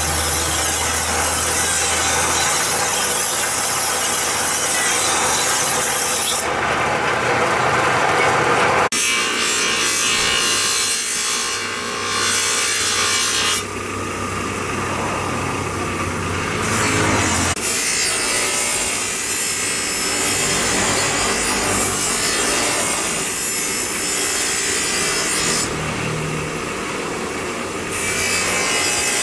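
A long steel blade being ground and polished against spinning abrasive wheels: a continuous hissing scrape of steel on the wheel, with a motor hum under it in places. The sound changes abruptly several times as the work moves between the wheels.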